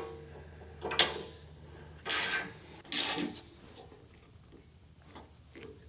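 Hand ratchet turning a hex-head bolt into a steel lift plate, with a few short ratcheting strokes about a second apart that die away near the middle.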